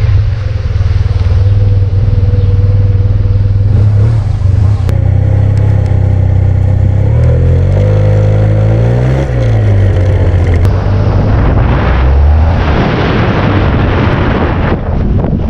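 Yamaha T-MAX DX maxi-scooter's parallel-twin engine running under way, its note shifting with the throttle around the middle. Rough wind noise on the microphone builds over the last few seconds.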